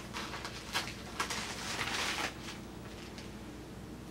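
A music album's packaging being handled and opened: a few light clicks and then a short rustle, ending about two seconds in, leaving a low room hum.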